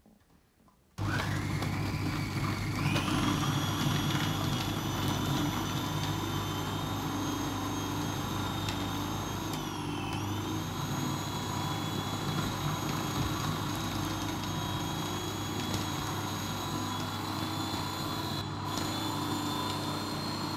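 Electric food processor switched on about a second in, its motor whine rising as it spins up, then running steadily as it chops strawberries, with a brief dip in pitch partway through. It stops at the end.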